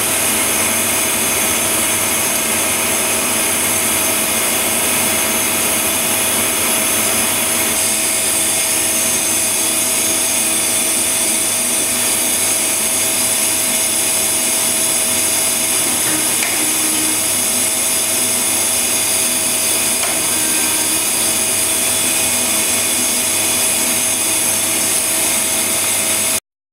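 Steady whirring hum with a strong high hiss from a running Mazak Quick Turn Smart 200M CNC lathe, holding level throughout; it cuts off suddenly near the end.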